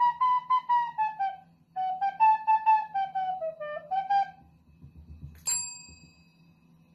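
A quick flute-like melody of short notes, drifting downward in pitch and stopping a little after four seconds in. About a second later a desk service bell under a dog's paw is struck once and rings out.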